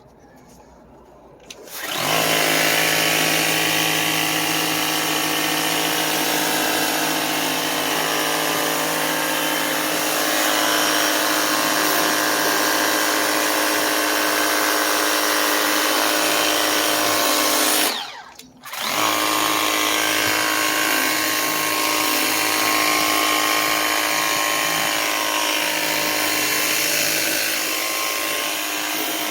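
Kobalt 40-volt handheld power cleaner's battery pump motor running steadily with the hiss of its water spray on the 40-degree nozzle setting. It starts about two seconds in, cuts out for about a second roughly two-thirds of the way through, then runs again.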